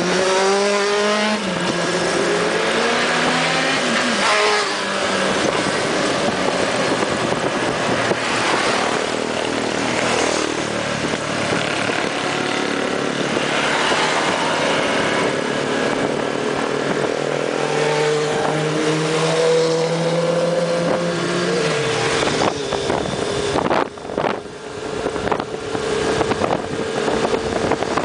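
Motorcycle engine accelerating, its pitch rising with each gear change during the first few seconds, then holding a steady note at cruising speed, heard from the bike itself with wind noise. The engine note drops briefly about three-quarters of the way through before picking up again.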